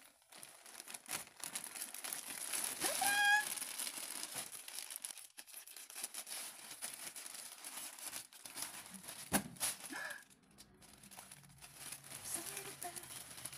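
Parcel packaging crinkling and tearing as it is opened by hand, with irregular rustles and small clicks. A short rising squeak comes about three seconds in, and a sharp click a little after nine seconds.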